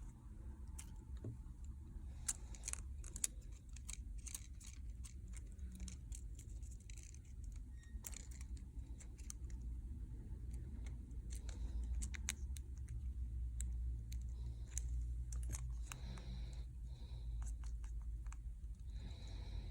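Scattered small clicks and taps of tools and small parts being handled during a phone repair, over a steady low hum.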